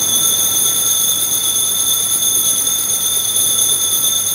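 Altar bell ringing a steady, high, unbroken tone at the elevation of the chalice during the consecration of the Mass, signalling the elevation.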